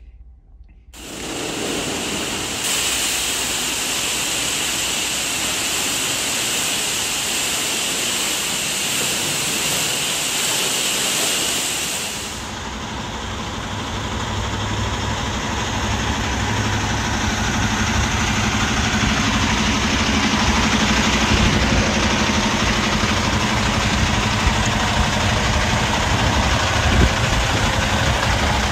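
Steady hiss of high-pressure water spray for about the first twelve seconds. Then the hiss eases and a diesel truck engine idles under continuing spray noise, growing slightly louder toward the end.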